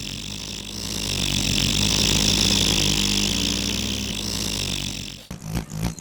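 A motor running, swelling louder from about a second in and fading away toward the end. Rhythmic music starts near the end.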